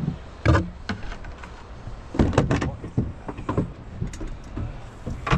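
A few sharp knocks and clatters on a small boat, a cluster of several in quick succession in the middle, over a steady low rumble of wind and water.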